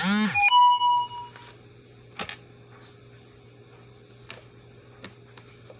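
A brief two-note voiced sound and a short ringing tone fading out right at the start, then a sharp click and a few faint taps of greeting cards being handled.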